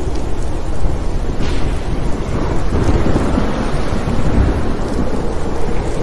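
Thunder rumbling low and continuously over a steady hiss of rain.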